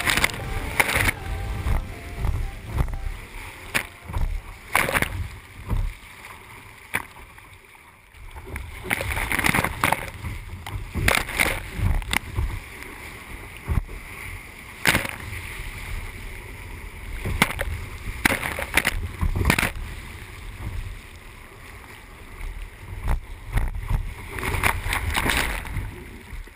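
Water splashing and surging around a sea kayak in surf, with irregular sharp splashes over a steady low rumble.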